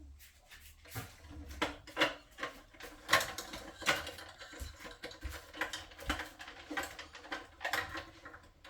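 Irregular light clicks and knocks of small hard objects being handled, a few to several a second, starting about a second in.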